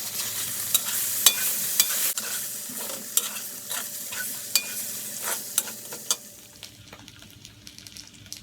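Yam cakes sizzling in hot oil in a pan, stirred with a utensil that clicks and scrapes against the pan several times; the sizzling fades about six and a half seconds in.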